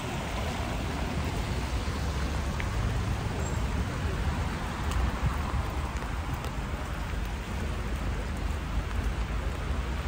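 Rain on a city street: an even hiss of rain and wet pavement over a steady low rumble, with a few faint ticks of drops.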